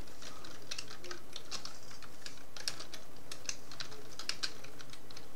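Computer keyboard being typed on: quick, irregular keystroke clicks over a steady background hiss.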